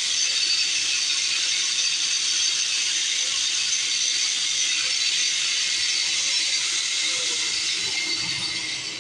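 Stick (arc) welding: a steady, crackling hiss from the electrode's arc, easing off right at the end as the arc is broken.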